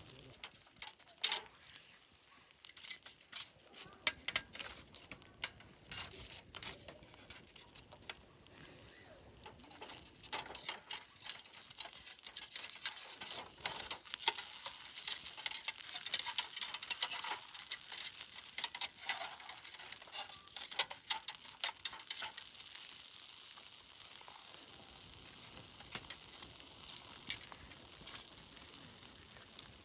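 Food sizzling in a pan with many small clicks and taps as it is stirred, busiest in the middle and settling to a quieter steady hiss over the last few seconds.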